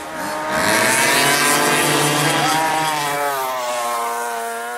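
Small high-revving engine, likely a racing kart engine, its pitch climbing over the first second or so and dropping again after about three seconds as it fades away.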